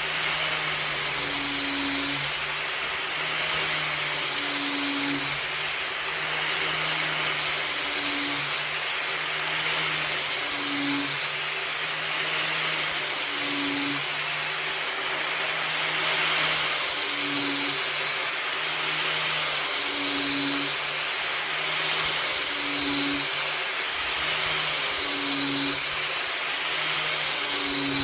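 Angle grinder in a blade-sharpening jig grinding the edge of a steel lawn mower blade: a steady grinding whir that swells and eases in a regular cycle about every three seconds.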